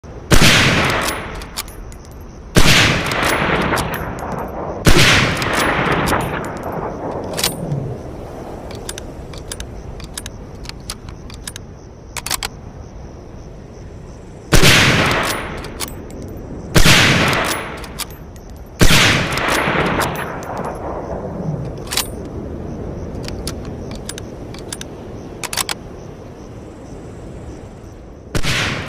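M1903A4 Springfield bolt-action .30-06 sniper rifle firing seven loud single shots, each followed by a long rolling echo that dies away over a couple of seconds. The shots come in two groups of three about two seconds apart, with a long pause between, and a seventh near the end; faint clicks are heard in the gaps.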